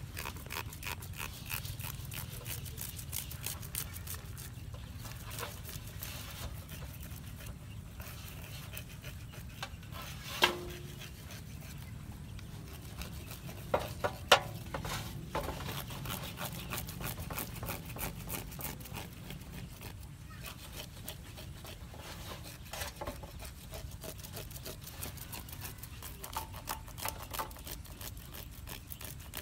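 Hands handling a water snake's wet body while cleaning it in a basin: faint rubbing and small clicks over a steady low hum, with a few sharper clicks about ten and fourteen seconds in.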